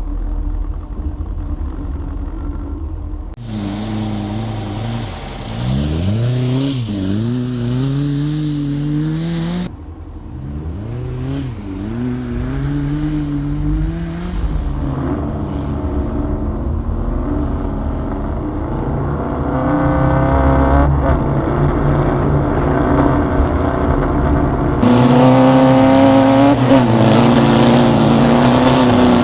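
Air-cooled Volkswagen flat-four engine revving up and down as the vehicle drives off-road. Its pitch rises and falls repeatedly, and the sound changes abruptly three times.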